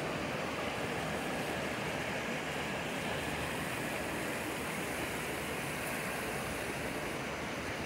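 Shallow mountain creek rushing over rocks: a steady wash of water.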